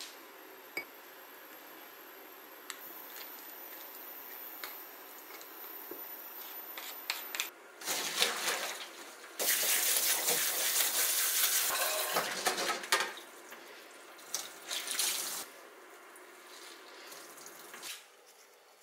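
Kitchen tap water running onto shepherd's purse in a stainless mesh colander in a steel sink, rinsing the greens: it starts about eight seconds in, runs steadily for about five seconds, and comes back in shorter splashes after. Before it, a few light clicks of kitchen utensils.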